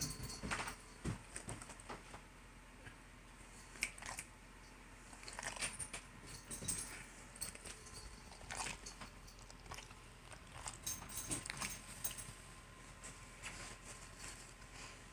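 Cats moving about: scattered soft taps, scuffles and rustles at uneven intervals.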